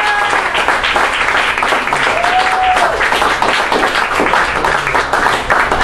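Applause: a group of people clapping steadily.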